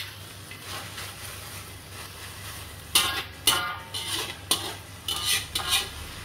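Metal spatula scraping and clanking against a wok as pucuk miding fern shoots are stir-fried, over a steady low sizzle. From about three seconds in the strokes come about twice a second, some with a short metallic ring.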